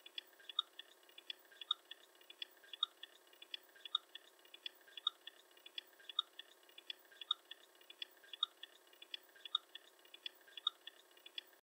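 Faint, quick clicks and ticks in a cluster that repeats evenly about once a second.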